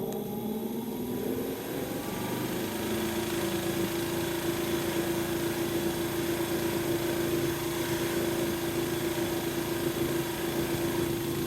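Polishing buffer's electric motor running, its pitch rising through the first second as it comes up to speed, then a steady hum with a hiss over it. This is the buffing stage on a guitar finish after wet-sanding to 1500 grit.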